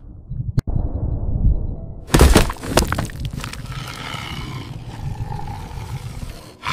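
AI-generated soundtrack of a Google Veo 3 security-camera clip of a deer: a low rumble throughout, a burst of sharp cracking crashes about two seconds in, then a drawn-out animal-like call.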